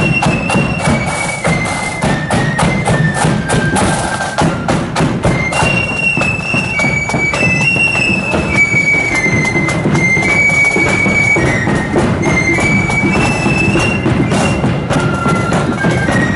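Marching drum and flute band playing a march: a high flute melody moving in short stepped notes over steadily beating drums.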